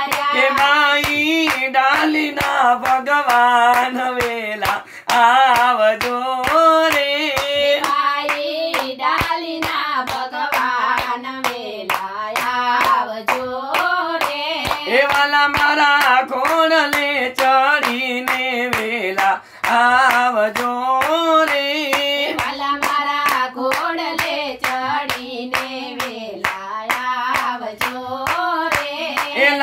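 A man and women singing a Gujarati devotional dhun in unison, unaccompanied except for their own steady hand-clapping on the beat.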